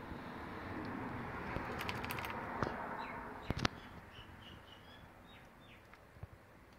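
A fuel pump sender assembly being turned over in the hands: a rustling with a few light clicks and knocks in the first half. Faint bird chirps come in a quick string in the second half, each short and falling in pitch.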